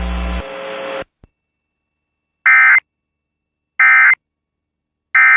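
Three short bursts of EAS SAME digital data tones, the End of Message code that closes a broadcast alert, each about a third of a second long and about 1.3 s apart. Before them, broadcast static cuts off about a second in, followed by a faint click.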